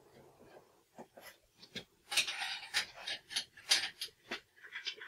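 Irregular clicks, knocks and short clatters of tools and metal being handled at a workbench, loudest around two seconds in.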